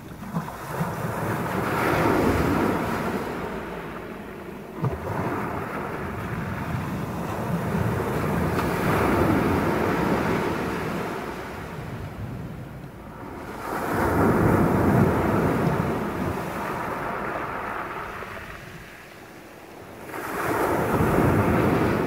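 Small sea waves breaking and washing up a shingle beach, the rush of surf swelling and fading four times, roughly every six seconds.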